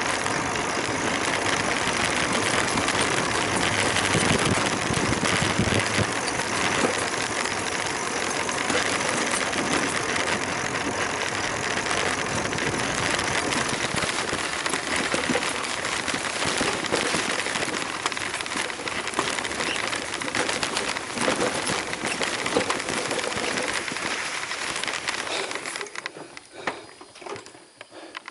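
Steady, loud rushing and crunching of a bicycle rolling along a loose, sandy dirt road. It drops away about two seconds before the end, leaving a few scattered clicks.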